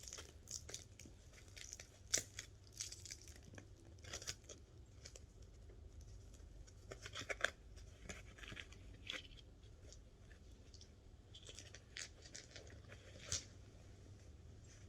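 Faint rustling and crinkling of packing material with scattered small clicks, as crystals are handled and unwrapped from their packaging.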